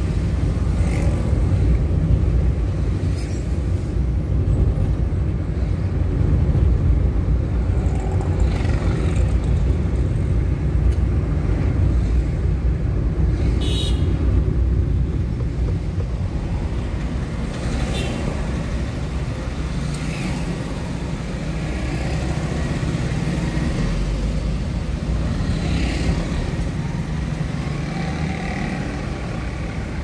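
Steady low rumble of a small car driving along city roads, with passing traffic heard now and then and a short sharp sound about halfway through.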